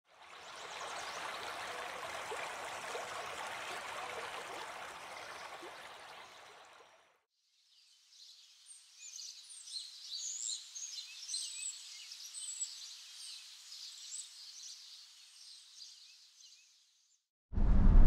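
A steady rush of running water that fades out after about seven seconds, then a chorus of small birds chirping high and thin, which fades out near the end. Just before the end, the louder low hum of a moving pickup's cab cuts in.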